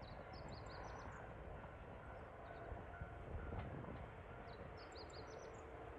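A small bird gives a quick run of high chirps twice, about a second in and again around five seconds in, over a steady low rumble.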